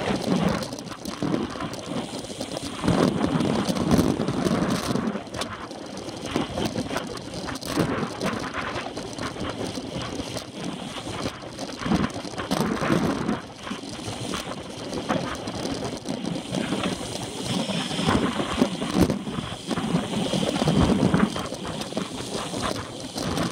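Wind rushing over the microphone of a handlebar-mounted camera on a road bike at race speed, rumbling in gusts every few seconds, over a steady hiss of tyres on tarmac with frequent small rattles and knocks from the road.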